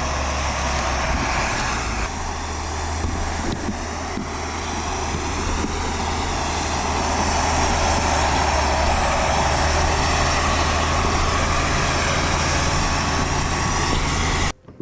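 A motor vehicle running steadily: a constant low engine drone under an even hiss of tyre and road noise, which cuts off abruptly near the end.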